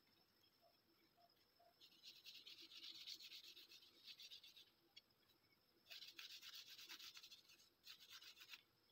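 Faint rubbing of a hand over a wooden shotgun fore-end as a stain finish is worked into the wood. It comes in two spells of back-and-forth strokes, the first from about two seconds in, the second from about six seconds in to near the end.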